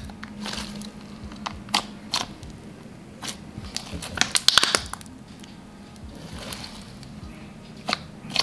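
Thick, glossy Elmer's Gue slime squeezed and kneaded by hand, making scattered sharp clicks and wet pops, busiest about four and a half seconds in.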